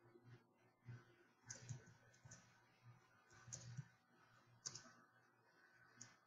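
Faint keystrokes on a computer keyboard: about half a dozen irregularly spaced key clicks.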